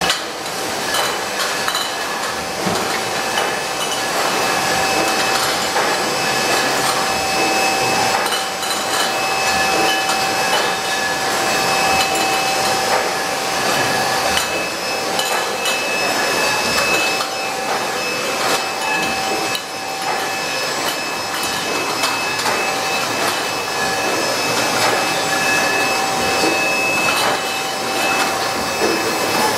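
Wine bottling line running: empty glass wine bottles clink and knock against each other on a steel conveyor, with many small clatters, over the steady hum and whine of the rotary filling machine.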